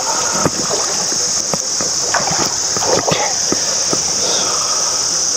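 Hooked black bass splashing at the water's surface as it is scooped into a landing net, a run of short sharp splashes. Insects drone steadily and high-pitched throughout.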